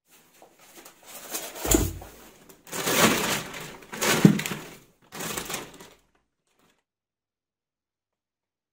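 Clear plastic packaging wrap rustling and crinkling as it is handled and pulled back, in several bursts with a couple of dull bumps, stopping about six seconds in.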